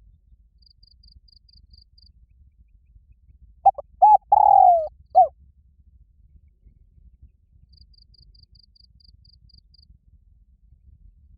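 Spotted dove cooing once, about four seconds in: two short coos, a long falling coo, then a last short coo. A faint insect trill of quick, high pulses sounds twice, before and after the call.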